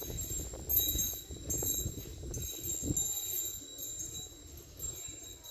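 Decorative doorbell chime ringing, struck again and again at irregular moments, its high ringing tones lingering and overlapping. A low rumble runs underneath.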